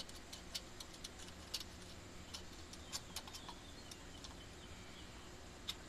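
Faint, irregular light clicks and taps from small carburetor parts being handled, about a dozen spaced unevenly, most of them in the first half.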